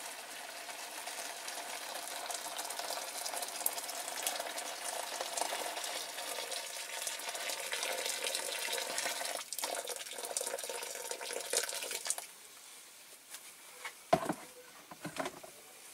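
Water pouring from a jug into a plastic tub and splashing over the parts in it. The pour stops about twelve seconds in, followed by a few light knocks.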